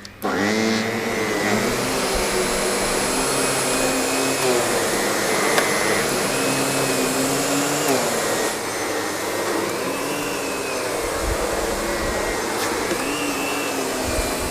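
Miele canister vacuum with an SEB 236 electric power nozzle switching on just after the start and running steadily. Its motor hum rises and falls gently in pitch every few seconds.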